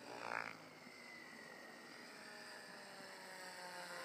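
Soxos 700 RC helicopter's rotor blades whirring in an autorotation with the motor switched off, the whine slowly falling in pitch as the rotor speed decays. A brief louder sound comes just after the start.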